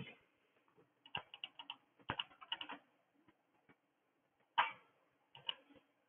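Computer keyboard typing: a quick run of about four keystrokes a second in, a few more around two seconds, and two single, sharper clicks near the end.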